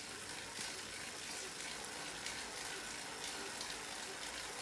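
Indoor bike trainer running under steady pedalling: a continuous even whir and rush from the trainer and the bike's drivetrain.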